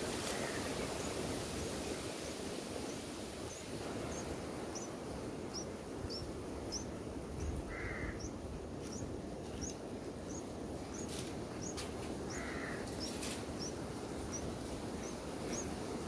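Thin, high, rising bird chirps repeated about twice a second over a steady outdoor hiss, with two short harsher calls about halfway and three-quarters of the way through.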